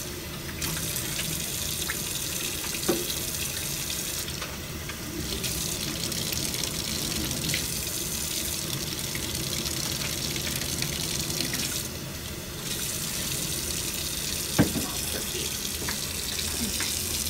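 Tap water running steadily into a sink, the flow sound dropping away briefly three times. There is a light knock about three seconds in and a sharper, louder knock near the end.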